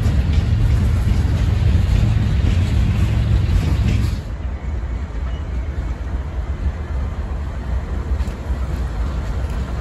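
Freight train rolling past close by, a loud, heavy rumble from its open-top hopper cars. About four seconds in it cuts off abruptly to a quieter rumble of a CSX freight's diesel locomotives moving past further off.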